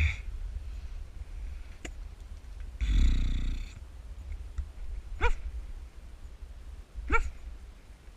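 A pet dog making brief sounds: a breathy noise about three seconds in, then two short rising yips about two seconds apart.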